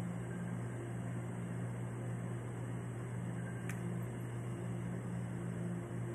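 Steady low hum of a running appliance or fan, with one light click a little past halfway.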